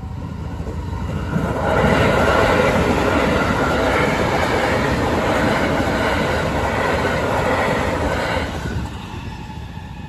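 Haruka limited express electric train (281 series) passing over a level crossing, its wheels rumbling and clattering on the rails. The noise builds about a second in and falls away near the end, with the crossing's warning bell ringing steadily beneath it.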